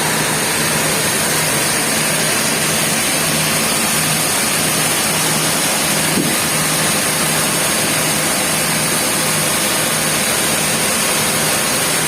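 Sawmill machinery running steadily: a continuous loud noise with a low hum underneath.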